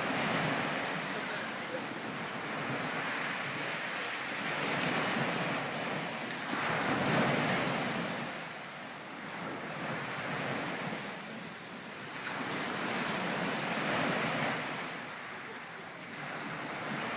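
Sea water surging and washing, swelling and fading every few seconds, with wind buffeting the microphone.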